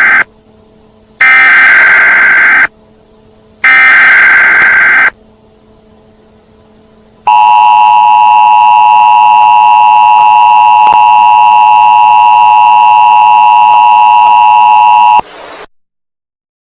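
Emergency Alert System broadcast header: the tail of one harsh, screeching digital data burst, then two more bursts about a second and a half long, a second apart. Then the EAS two-tone attention signal sounds, held steady for about eight seconds before cutting off sharply.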